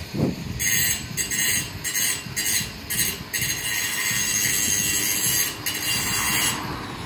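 Awning canvas being worked by hand at the top of a pole: a series of short rasping scrapes, about two a second, then one longer continuous rasp that stops shortly before the end.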